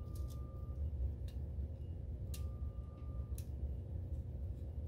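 A few sharp ticks and clicks about a second apart as a small screwdriver and a wire are worked into a plug-in screw terminal block, over a steady low hum.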